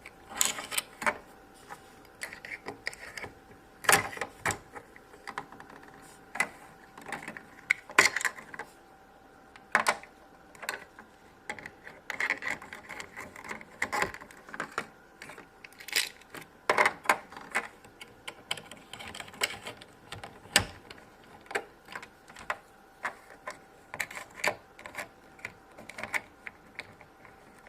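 Small plastic MagiClip doll dresses being pulled off and clipped onto princess dolls: a run of irregular plastic clicks and taps with light handling rustle.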